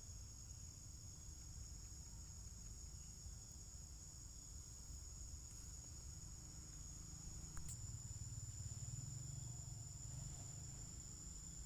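Steady high-pitched chorus of insects, with a low rumble underneath that grows a little louder in the second half, and a single sharp click about seven and a half seconds in.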